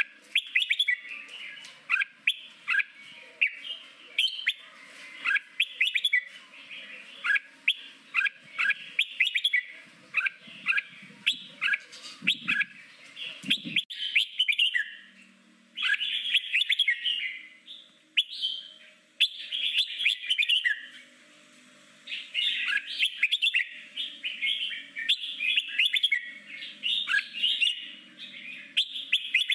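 Red-whiskered bulbul singing in the wild 'forest voice' (giọng rừng) style: a fast run of short, clear whistled notes in quick phrases. There are brief pauses about halfway through and again about two-thirds of the way in.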